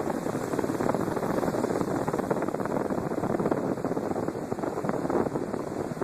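Storm wind buffeting the microphone: a steady, rough rushing noise full of fine crackle.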